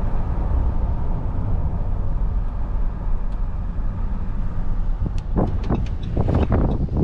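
Steady road and engine rumble of a car being driven, heard from inside. About five seconds in, a quick run of short clicks and knocks comes in over the rumble.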